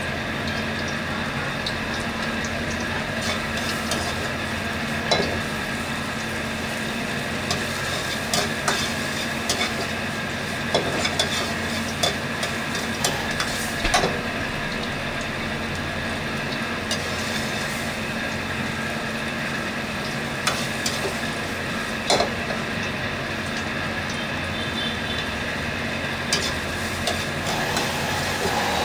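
Squid teeth, corn kernels and salted egg yolk sizzling in a wok over a gas burner, stir-fried with a spatula that scrapes and knocks against the pan every second or two. A steady hum runs underneath.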